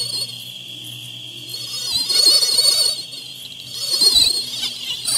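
Sound-designed night scene for an animated mosquito: a steady cricket-like insect drone and a low sustained tone, with a wavering high-pitched mosquito whine that swells twice, about two and four seconds in, as it flies close.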